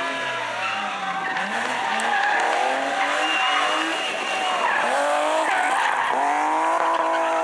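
BMW E30 rally car's engine revving hard through a hairpin, the pitch dropping and climbing again several times, with tyres squealing and skidding as the car slides. Near the end it revs up to high, steady revs as it accelerates out of the bend.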